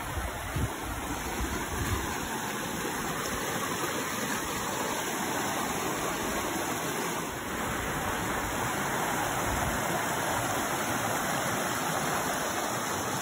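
Shallow rocky creek running over stones and small rapids: a steady rush of water.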